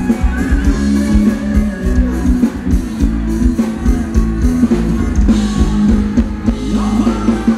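Live band playing Thai ramwong dance music: guitar and drum kit over a steady beat.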